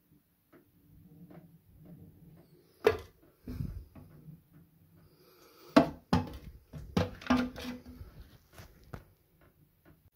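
Plastic toilet cistern fittings knocking and clicking against the ceramic tank as they are handled: a sharp knock about three seconds in, then a cluster of knocks and clicks between about six and nine seconds in.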